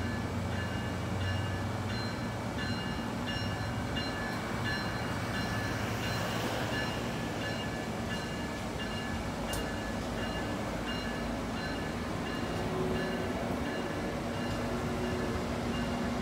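Amtrak passenger coaches rolling past at speed: a steady rush of wheels on rail, with faint high tones coming and going throughout.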